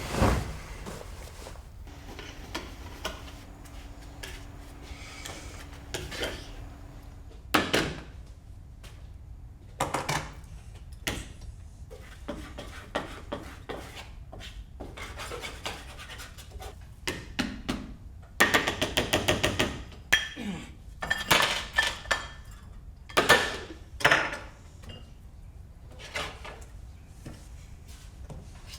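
Kitchen dishes and utensils clinking and knocking during food preparation: separate clatters and taps, with a quick run of rapid clinks about two-thirds of the way through. A faint steady low hum runs under the first third.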